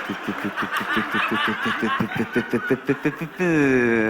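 A man giggling in quick, rapid ha-ha pulses. Near the end it turns into one long drawn-out note that falls in pitch.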